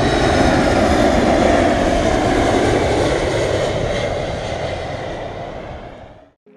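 A steady, loud engine roar with a faint high whine, fading out near the end.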